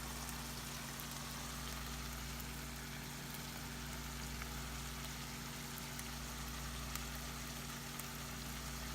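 Roast beef and cheese frying in oil in a pan, a steady soft sizzle with a few faint crackles over a steady low hum.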